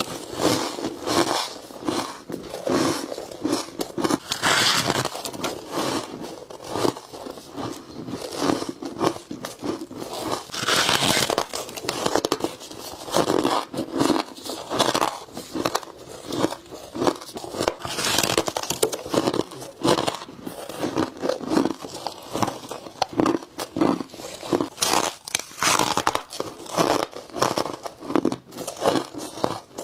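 Someone biting into frosty ice close to the microphone, one crisp crunching bite after another with short gaps between.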